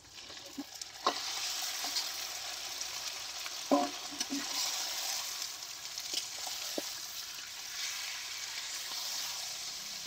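Marinated mutton pieces sizzling and spitting in hot oil with fried onions in a metal kadai as they go in and are stirred. The sizzle swells about a second in, and a few sharp knocks of the spatula against the pan come through it.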